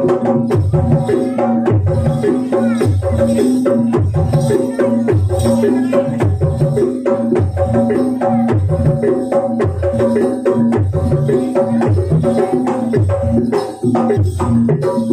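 Live jaranan gamelan music: hand drums beat a steady repeating pattern over held, ringing gong-like tones and sharp struck accents.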